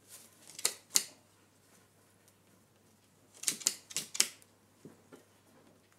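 A crow's beak pecking and tapping at a sandal and the wooden table, as sharp clicks: two about a second in, a quick run of four a little past the middle, then a couple of fainter ones.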